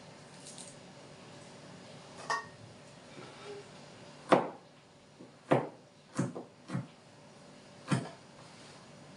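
Kitchen knife chopping garlic cloves on a cutting board: about seven sharp, irregularly spaced knocks of the blade on the board, starting about two seconds in.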